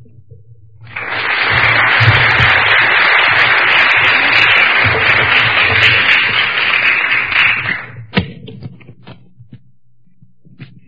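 Audience applauding for about seven seconds, starting about a second in and stopping near the end. A few knocks and clicks follow as a microphone is handled and put on.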